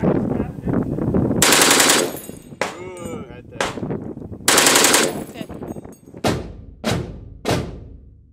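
Browning M1919 machine gun firing short bursts of automatic fire, each burst trailing off in a long echo. Near the end come a few separate heavy booms about half a second apart.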